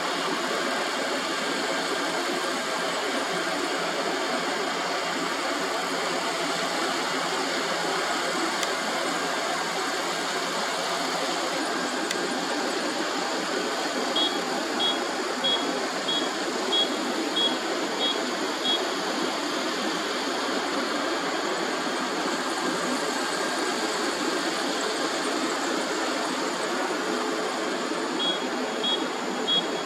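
Kubota combine harvester running steadily while harvesting rice. A string of high beeps, about one and a half a second, sounds from around the middle for about five seconds and starts again near the end.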